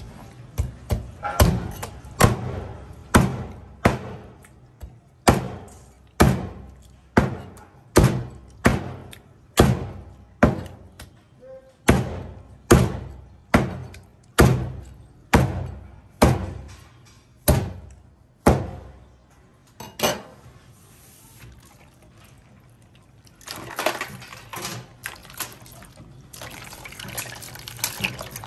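Heavy cleaver chopping pufferfish flesh on a plastic cutting board: sharp chops a little under a second apart, quicker at the start, stopping about 20 seconds in. Near the end, hands splash and swish the cut pieces in a bowl of water.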